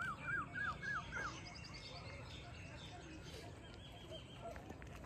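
A bird calling a quick series of short swooping notes, about three a second, the series climbing in pitch and stopping about a second in. Fainter high chirps from other birds follow, over a low steady outdoor rumble.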